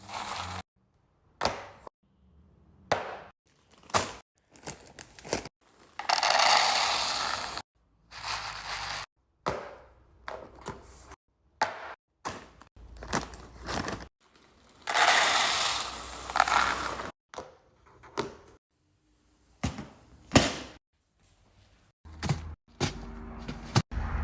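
Restocking and organizing handling sounds: a run of knocks and clacks as containers and packaged items are set down and moved, with two longer stretches of rustling, each sound breaking off suddenly into silence.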